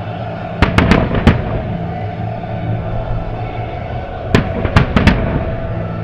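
Aerial fireworks bursting: a quick run of about four sharp bangs about half a second in, then a second run of about four bangs about four seconds in, over steady background noise.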